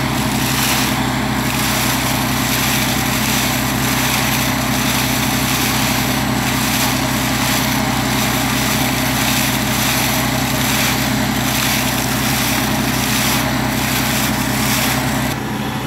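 Steady engine drone from a machine running the tube-well development, with water gushing and splashing out of the newly drilled deep tube well's casing pipe. The sound drops abruptly just before the end.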